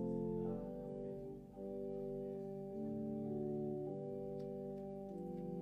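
Organ playing slow held chords that change every second or so, as quiet instrumental music.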